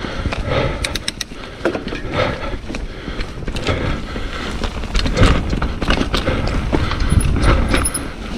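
Hardtail mountain bike ridden over a rough trail: tyre rumble and irregular rattling knocks from the bike, with wind noise on the mic.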